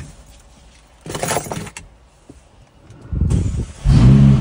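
McLaren 570S twin-turbo V8 being started: a short whirring rush about a second in, then the starter cranks suddenly about three seconds in and the engine catches and settles into a loud, steady idle near the end.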